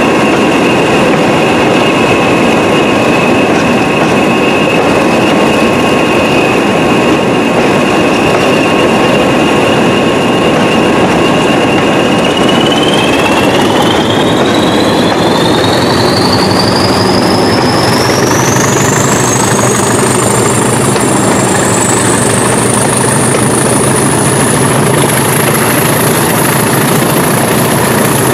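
Diesel locomotive engines working hard under power, heard close by from the train. A loud steady running noise carries a high whine that holds steady, then climbs smoothly and continuously in pitch from about halfway through, while a deeper engine note comes in.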